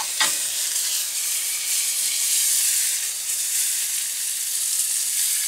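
Irish bangers frying in butter in a hot skillet, with a steady sizzle. A light knock comes just after the start.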